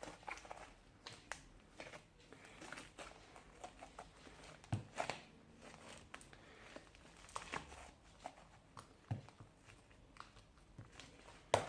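Faint, scattered soft clicks and crackles of slime being handled and squeezed by hand, a few slightly louder pops around the middle.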